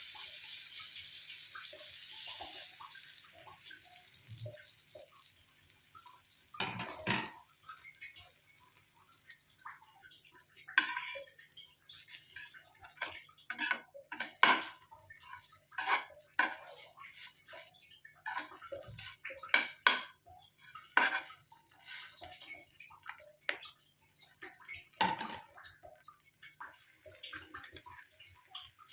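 Kitchen utensils and dishes clinking and knocking in irregular handling sounds that grow busier after the first few seconds.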